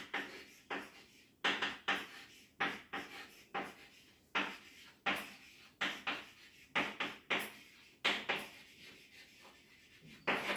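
Chalk writing on a blackboard: a steady run of short taps and scratches, about one or two a second, as letters and symbols are written.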